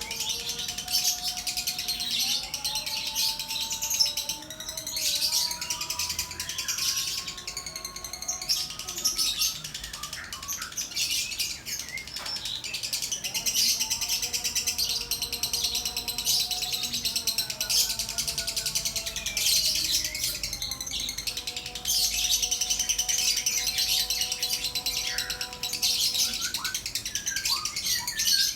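Lovebird chattering in long, near-unbroken strings of rapid high chirps, over a lower line of held notes that step from pitch to pitch like background music.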